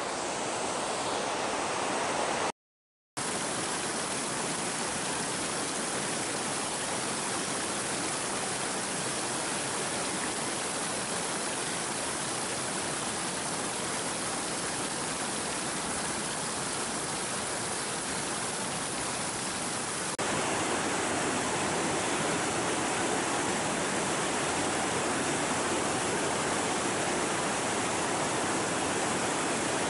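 Shallow mountain river rushing over rocky riffles, a steady even rush of water. It cuts out for about half a second near the start and is a little louder from about two-thirds of the way through.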